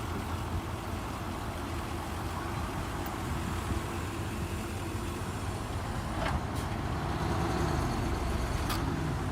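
Heavy diesel construction machinery running with a steady low rumble that swells a little after about six seconds, with a few sharp knocks near the end.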